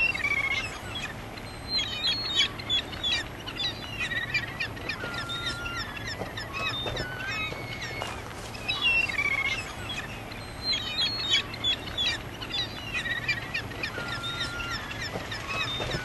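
A flock of birds calling at once: a continuous chorus of many short, overlapping chirps and whistles.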